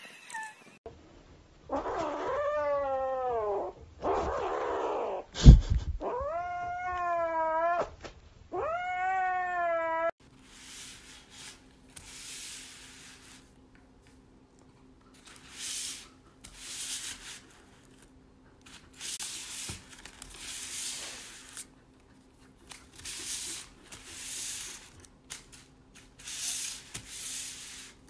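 A cat yowling in four long, wavering calls, each rising and then falling away, with one sharp knock about halfway through. After that, quieter irregular crinkling of paper and foil food wrappers as a cat paws at them, over a faint steady hum.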